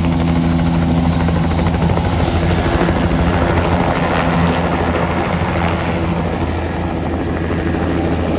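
Small two-bladed helicopter hovering low and then flying off, its rotor and engine running loud and steady.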